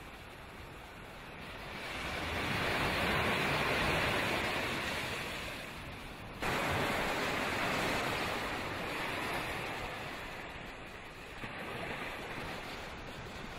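Ocean surf washing up on a sandy beach, a steady rushing noise that swells and eases as the waves come in. About six seconds in it cuts abruptly to another loud steady rushing noise that slowly fades.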